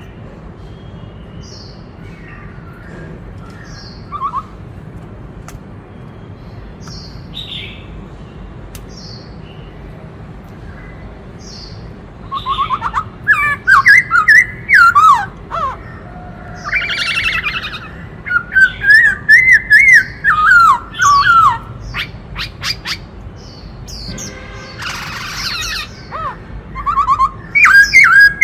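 Black-throated laughingthrush singing: faint short high calls at first, then from about halfway through loud, varied whistled phrases with quick trills and gliding notes.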